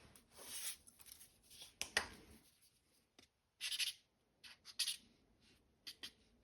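Scattered short rubbing, scraping and clicking sounds of hand work with small metal parts and tools, with no machine running; the sharpest click comes about two seconds in.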